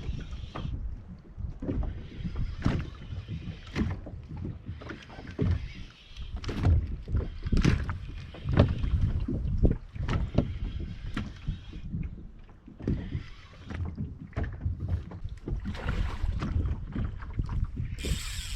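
Wind rumbling on the microphone, with repeated knocks and rustling hiss from handling rod and gear in a small plastic boat while a hooked fish is played.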